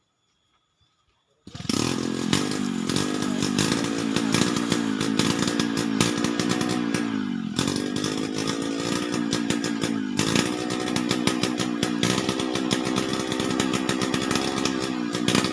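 Chainsaw comes in abruptly about one and a half seconds in and runs at high revs, cutting sonokeling wood; its pitch sags under load and picks back up twice.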